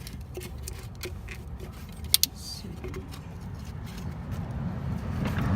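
Scattered light clicks and metallic clinks, with two sharp clicks about two seconds in, over a steady low hum.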